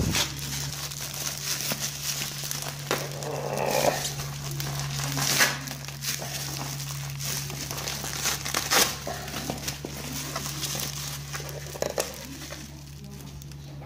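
Plastic mailer bag and bubble wrap crinkling and rustling as a parcel is handled and unwrapped by hand, with a few sharper crackles. A steady low hum runs underneath, and the rustling dies down near the end.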